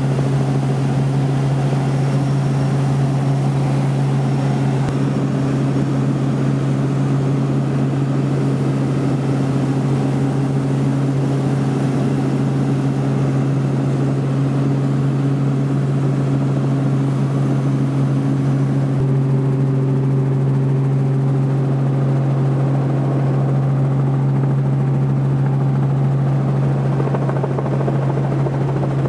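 Robinson R44 Raven II helicopter heard from inside the cabin: the steady drone of its rotors and six-cylinder Lycoming piston engine, a strong low hum held at one pitch over a rushing noise. The high hiss thins about two-thirds of the way through.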